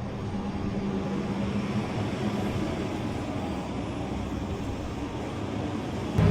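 A vehicle engine running steadily. Near the end it cuts suddenly to a louder engine at a slightly lower pitch.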